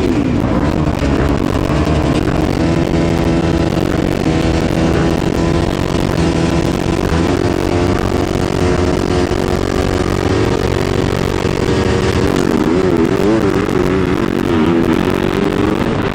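Motocross dirt-bike engines running at the starting gate, held at steady revs. From about twelve seconds in, the pitch wavers up and down as the throttle is worked and the bikes set off.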